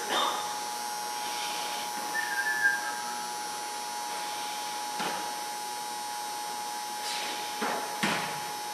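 Steady hum and hiss with a constant high tone, broken by a few short knocks of footballs being snapped and caught: one about five seconds in and a couple near the end.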